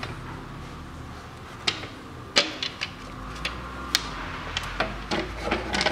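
Plastic clicks and knocks of an upper timing-belt cover being fitted and pressed into place over the engine: a string of irregular sharp taps, the loudest about two and a half seconds in, over a faint low hum.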